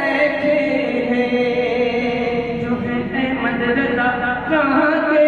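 A man singing a kalam (Urdu devotional verse) in long, held, ornamented notes, the pitch stepping up near the end.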